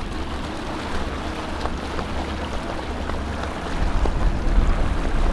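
Yamaha 150 outboard motor idling with a steady low rumble, swelling slightly about four seconds in, with faint knocks and water sounds over it.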